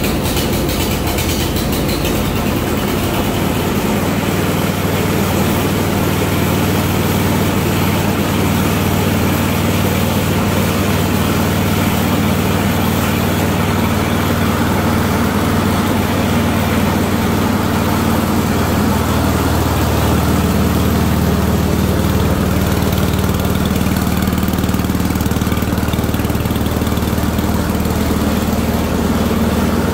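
Ariens Deluxe 28 snowblower's single-cylinder gas engine running steadily just after a cold start on choke, having sat unused for a couple of months. Its note shifts slightly a few seconds in.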